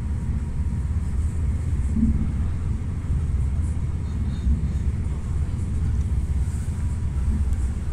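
Steady low rumble of a moving regional train, heard from inside the carriage.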